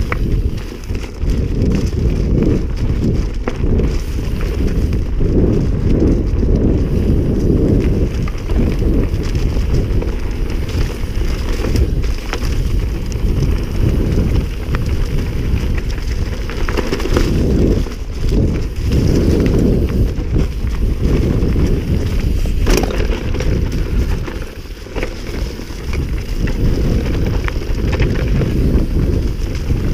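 Wind buffeting the microphone as a mountain bike is ridden fast down a dirt trail: a heavy, uneven low rumble mixed with the rattle of the bike over the ground, and a few sharp knocks from bumps.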